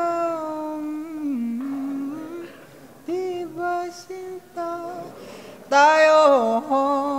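A man singing a slow Tagalog ballad unaccompanied in a high, smooth voice. He holds long wavering notes with slides and runs between them, and a louder, higher phrase comes near the end.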